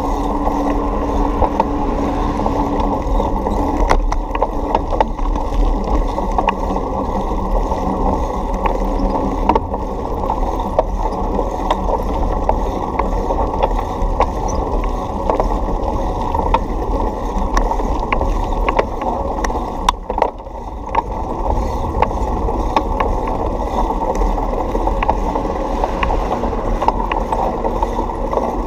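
Bicycle rolling over a sidewalk, heard through a camera mounted on the bike: a steady rumble of the ride with frequent small clicks and knocks from bumps and rattling parts.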